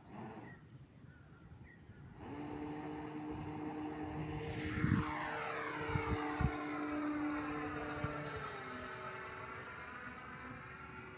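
Electric motor and propeller of a wooden Lazy Bee RC plane in flight: a steady buzzing hum that comes in about two seconds in and swells as the plane passes. There are a few low thumps in the middle, and the pitch drops slightly near the end.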